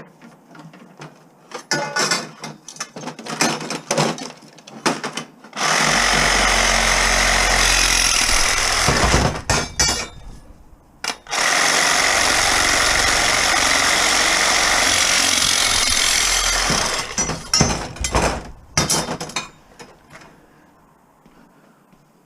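A handheld power tool runs at a steady pitch in two stretches of about three and five seconds, with knocks and rattles of metal being handled before, between and after.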